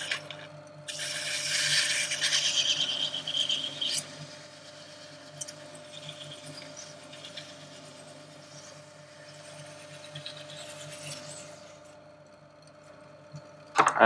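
Record CL1 lathe running at its slowest speed with a steady hum while 120 grit emery cloth is held against a spinning brass quick coupler. The sanding is a loud hissing rub from about a second in until about four seconds, then a fainter rubbing for the rest.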